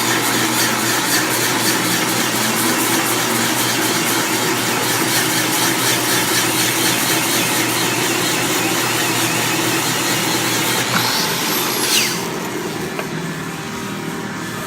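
Angle grinder bevelling the end of a steel pipe that a Ridgid 300 threader spins, with the machine's motor humming underneath. About eleven seconds in, the grinder is switched off and winds down in a falling whine, leaving a lower hum.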